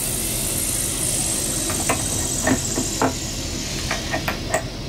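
A steady hiss, with a few light metallic clicks and knocks as the rod and pin fitting of the stern platform's electric actuator are handled.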